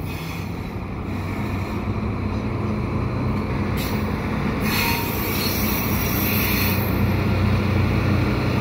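Railpower RP20BD genset switcher and its slug rolling past at low speed, with the diesel gensets' steady low drone growing louder as the locomotive comes closer. Bursts of hiss come about four seconds in and again from about five to seven seconds in.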